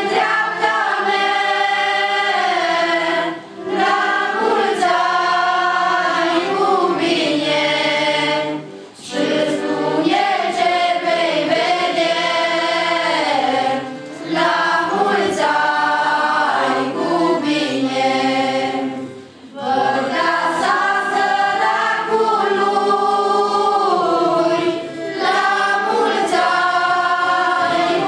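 A group of colindători, mostly women's and girls' voices, singing a Romanian colindă (Christmas carol). The carol runs in sung phrases of about five seconds, each followed by a brief breath pause.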